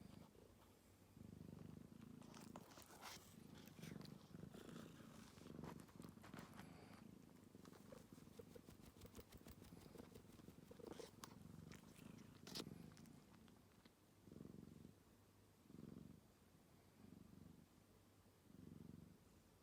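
A cat purring faintly and close, the purr swelling and fading with each slow breath. A few soft clicks and rustles come over it, the sharpest about twelve seconds in.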